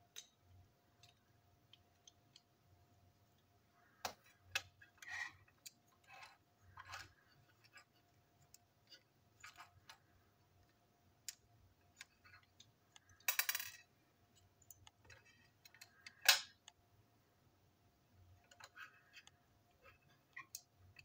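Small plastic and metal toy-locomotive parts being handled and snapped together: scattered light clicks and taps, a short rattle about two-thirds of the way through, and a sharp click soon after, the loudest sound.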